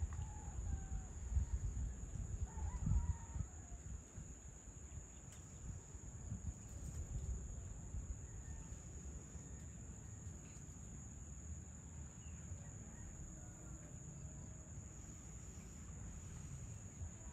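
An evening insect chorus of crickets makes a steady, high-pitched shrill. Wind rumbles low on the microphone, strongest in the first few seconds, and a few faint, distant bird calls come through now and then.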